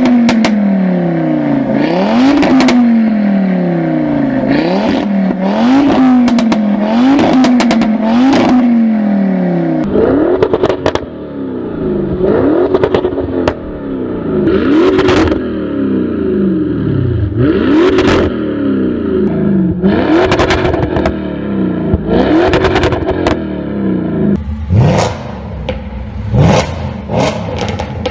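Performance car engine revved in repeated sharp blips, its exhaust crackling and popping as the revs fall back after each one. The engine note changes character about ten seconds in.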